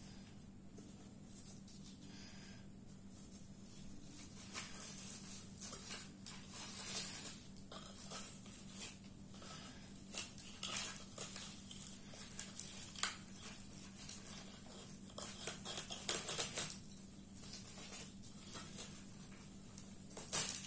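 Dried cow dung being crumbled and pulled apart by hand, with the paper beneath rustling, in irregular scratchy, crackling bursts that grow busier after a few seconds. A faint steady hum runs underneath.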